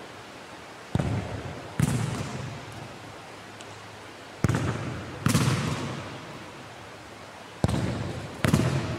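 Futsal ball kicked hard three times against a sports-hall wall, each kick followed less than a second later by the ball hitting the wall. Every impact rings on in the hall's echo.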